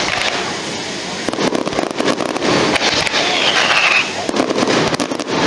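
Fireworks display: dense crackling and popping of bursting shells, with a falling whistle about three seconds in.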